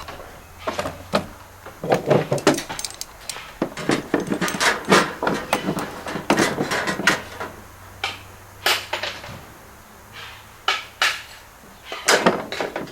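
Knocks, clacks and rattles of sheet copper flashing pieces being handled, set together and tapped into place, some strikes ringing briefly.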